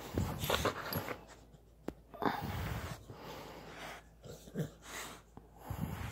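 A dog breathing hard in short irregular bursts while tugging and chewing on a toy, with scuffling against the couch.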